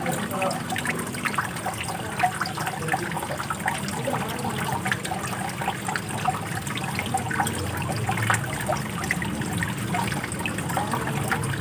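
Running water, splashing and trickling steadily.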